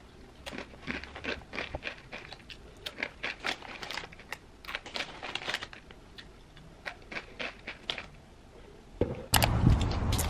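Close-up crunching as dry Ppushu Ppushu ramen snack is chewed, with crinkling of the snack bag: a long run of short crisp crunches. About nine seconds in, louder steady noise cuts in.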